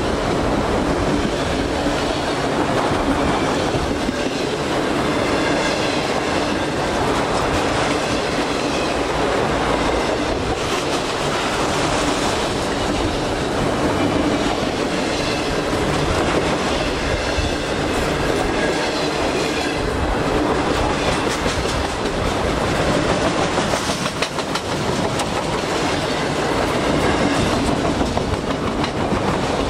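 Freight train of autorack cars rolling past close by: a steady rumble of wheels on rail with the clack of wheels over rail joints.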